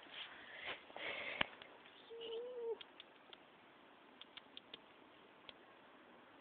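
Rustling of dry grass and brush close to the microphone for the first second and a half, ending in a sharp click. A short, steady hum-like tone follows about two seconds in, then faint scattered ticks.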